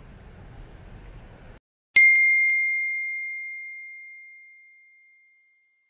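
Faint outdoor ambience cuts off abruptly about a second and a half in. Half a second later a single bell-like ding is struck and rings with one clear high tone that fades away over about three and a half seconds.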